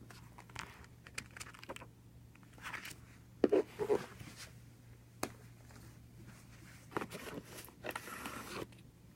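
Packaging being handled and opened: irregular rustling, crinkling and scraping with a few sharp clicks, the loudest about three and a half seconds in.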